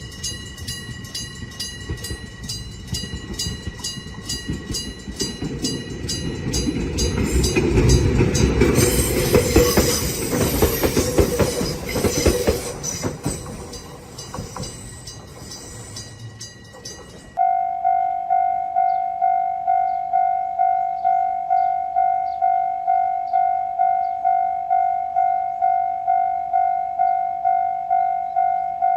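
Japanese railroad crossing warning bell clanging in a steady repeating rhythm while a train passes, the train noise swelling from about 7 s and fading by about 14 s. About 17 s in it cuts abruptly to a different crossing's electronic alarm, a clear ringing tone pulsing about one and a half times a second.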